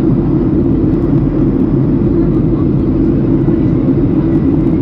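Steady cabin noise of a passenger plane in flight: the engines and rushing air heard inside the cabin as an even, low drone with no breaks.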